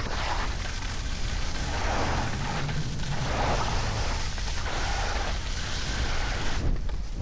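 Wind buffeting the action camera's microphone while skiing: a loud, steady low rumble with slow swells.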